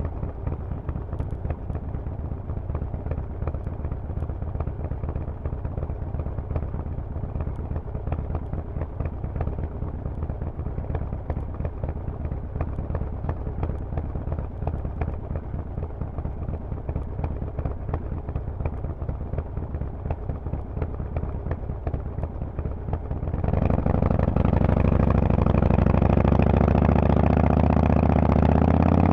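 Harley-Davidson Forty-Eight's air-cooled V-twin running through Vance & Hines pipes with a steady, low, pulsing exhaust note. About 23 seconds in, the throttle opens and it gets much louder, with the pitch climbing near the end.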